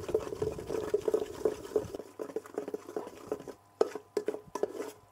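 Spoon stirring and scraping in a cooking pot of caramelizing palm sugar, a quick regular run of strokes about three or four a second. Further in it turns quieter and sparser, with a few sharp clinks.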